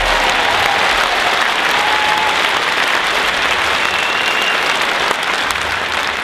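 A large crowd applauding, steady and loud, easing off slightly near the end.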